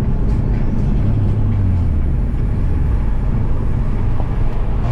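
Cabin sound of a turbocharged Subaru EZ30 3.0-litre flat-six pulling hard under load with road noise. The engine note holds steady, then sags a little about two seconds in; the clutch has just slipped hard.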